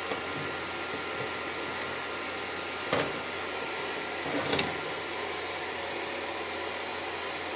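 Steady hiss-like background noise with a faint hum, broken by one sharp click about three seconds in and a brief scraping or handling sound a second and a half later.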